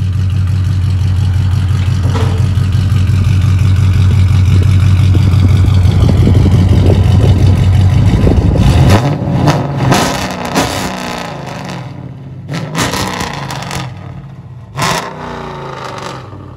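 Dodge Charger R/T's 5.7 L Hemi V8 running through straight-piped exhaust (long-tube headers, high-flow cats, X-pipe, resonator and muffler deleted), held at raised revs as a steady deep drone that grows louder for about eight seconds. The revs then drop, and a few short, sharp bursts follow as the sound dies down.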